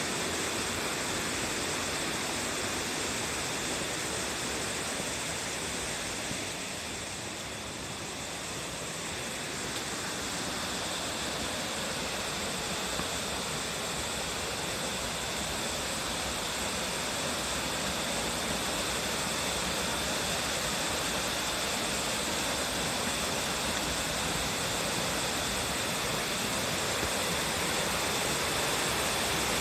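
Waterfall: a steady rush of falling water, dipping slightly in level for a few seconds about a quarter of the way through.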